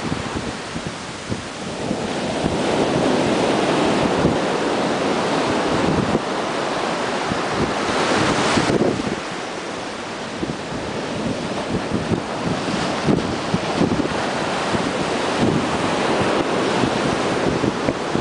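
Ocean surf washing and breaking along the beach, with wind buffeting the microphone. The rushes of water swell and fade, the loudest cutting off abruptly about nine seconds in.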